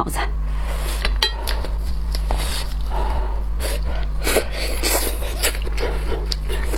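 Shellfish shells being cracked and pulled apart by hand, with scattered clicks and crackles and occasional clinks against a dish, over a steady low hum.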